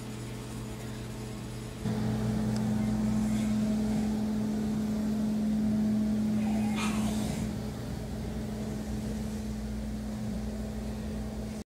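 Steady low mechanical hum that steps up in level about two seconds in and eases back slightly near the end, with a brief rustle in the middle.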